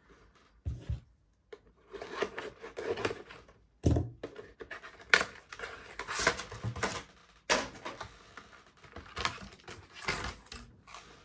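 Card packaging and cards being handled: irregular rustling, scraping and tearing, with a few sharp snaps, loudest about five and seven and a half seconds in.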